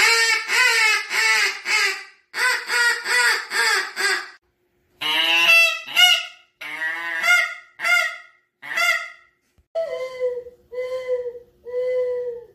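A wooden goose call blown in runs of honks: two quick strings of about five notes each, then sharper notes that break in pitch, and near the end about five evenly spaced, steady honks.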